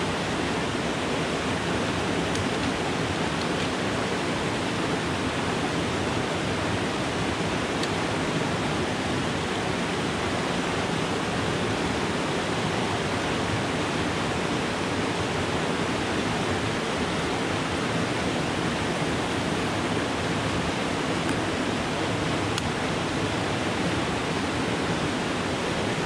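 Water rushing steadily over a river's falls and rapids.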